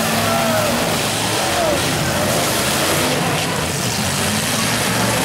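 Engines of several full-size demolition derby cars running and revving together in the arena, a loud steady din.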